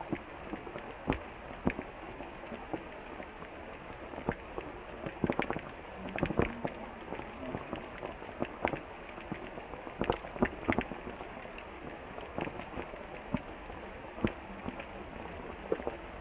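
Rain falling on bamboo foliage: a steady hiss of rain with irregular sharp taps of drops landing close by.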